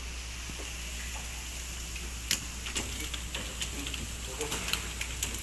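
Scattered sharp taps and clicks of speared fish and fishing gear being handled on a boat's wet floor, starting about two seconds in, over a steady low hum.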